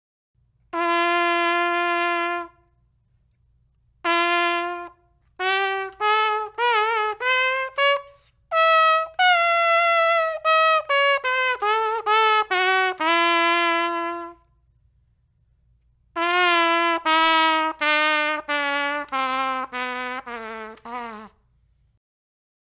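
A 3D-printed ABS plastic trumpet being played. It opens with a held note, then plays runs of short separate notes and another long note, pauses, and ends with a line of notes stepping down in pitch. Its maker says the horn sounds bad and is far out of tune.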